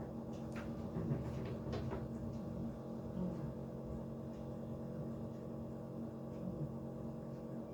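Steady low hum with a few faint, soft clicks; no sneeze or other loud burst.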